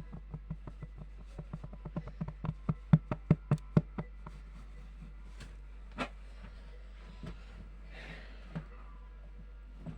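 ASMR tapping: a quick run of sharp taps that grows louder for about four seconds, then a handful of scattered single taps. A faint steady low hum of background noise runs underneath.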